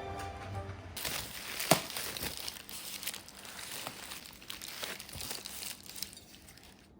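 Packaging wrapping crinkling as it is handled and unwrapped, with a sharp click about two seconds in.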